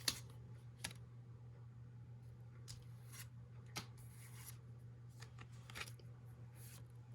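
Faint, scattered soft clicks and rustles of Pokémon trading cards being slid one behind another while flipping through a freshly opened booster pack, with a steady low hum underneath.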